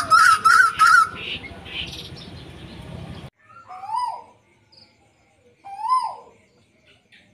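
Caged bird calls: in the first second a songbird gives a quick run of four loud chirps. Then the tuwu (lekkolek) gives two single calls about two seconds apart, each a short note that rises and then falls.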